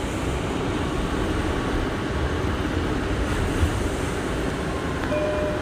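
Steady rumbling noise inside an R179 subway car standing at a station platform, with a short steady tone near the end.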